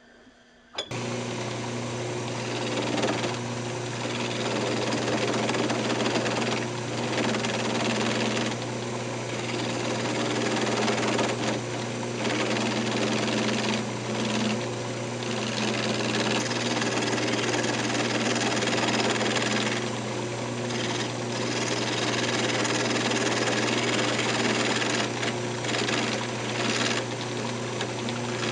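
Wood lathe switched on about a second in, then running with a steady hum while a hand-held turning tool cuts the spinning square blackheart blank down to round. The cutting noise breaks off briefly several times as the tool lifts from the wood.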